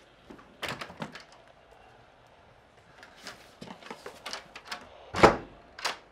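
A door being handled: scattered clicks and knocks, then a loud low thump about five seconds in and a smaller knock just before the end.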